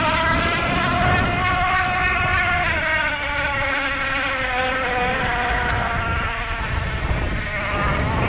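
Electric bike's motor whining steadily, its pitch drifting up and down a little with speed, over a low rumble from the fat tyre on rough ground.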